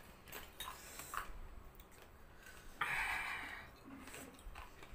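Small mouth clicks and lip smacks, with one breathy hiss of air lasting about a second, nearly three seconds in. This is someone breathing through a mouth burning from extremely spicy Korean noodles.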